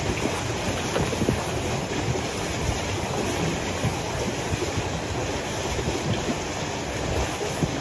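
A long-handled snow brush sweeping deep snow off a car's hood and roof: continuous rough brushing and scraping, with loose snow sliding and spilling off the car.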